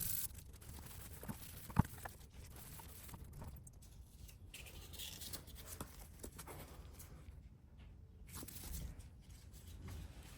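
Faint scratching and handling noises of hand work on motorcycle parts, with scattered small clicks and one sharp click about two seconds in.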